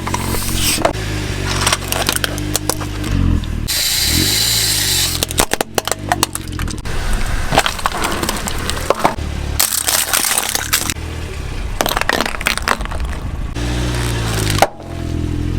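A car's engine running and revving as its tyres roll over and crush objects, with repeated cracking and crunching and a burst of hissing about four seconds in.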